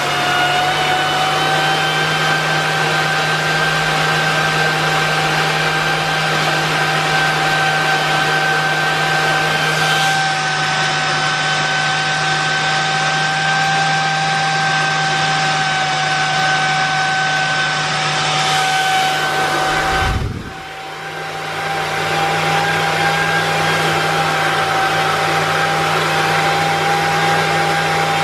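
Miele S8590 canister vacuum cleaner's 1200-watt motor running steadily at full suction during an airflow measurement, a high whine over rushing air. About twenty seconds in, a low thump and a brief drop in the airflow noise, after which it runs on as before.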